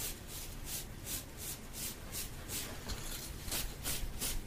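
Rhythmic hissing strokes at about four a second from haircut-roleplay ASMR tools worked right at the microphone. The strokes grow less regular near the end.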